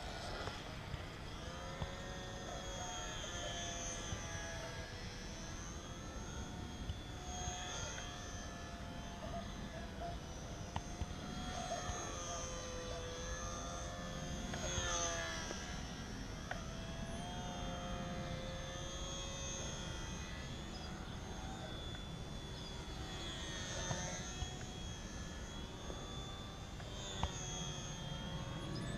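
Small electric motor and propeller of a HobbyZone Sport Cub S RC plane whining in flight, its pitch rising and falling as the throttle changes and the plane passes back and forth.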